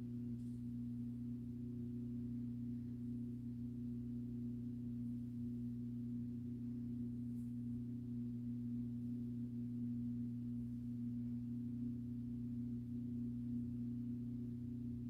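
A steady low hum made of a few stacked tones, holding the same pitch and level throughout.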